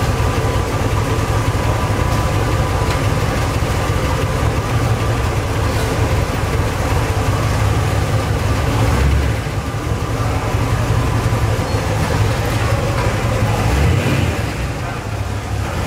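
Chevrolet Corvette C2 Stingray's V8 idling with a steady low rumble as the car creeps forward at walking pace.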